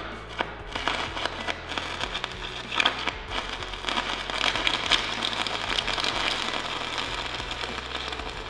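Welding arc on magnetized steel pipe crackling and sputtering, noisy and erratic: magnetic arc blow, so the welder cannot strike a consistent arc.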